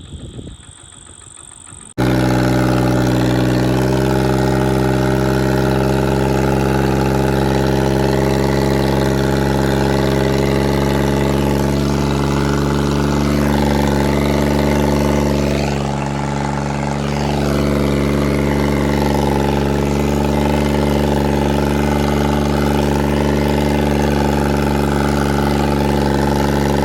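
Tractor's diesel engine running at a steady pitch while ploughing, starting abruptly about two seconds in; it dips slightly in loudness about two-thirds of the way through.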